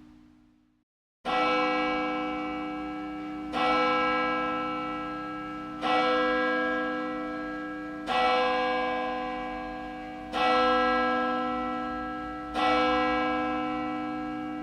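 A single church bell tolling, starting about a second in. It is struck six times at an even pace of about one stroke every two and a quarter seconds, and each stroke rings on into the next at the same pitch.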